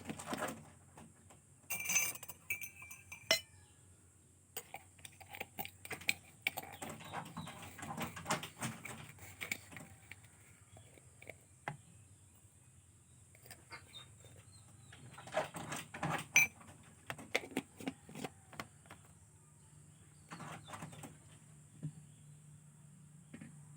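Irregular light clinks, taps and knocks of dishes and utensils being handled, with a few sharper ones about two, three and sixteen seconds in.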